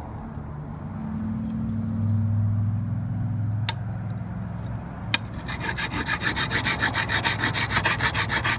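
A low steady hum, then from about five and a half seconds in a fast, even run of rasping strokes: a hand file scraping along the steel lawn mower blade's cutting edge.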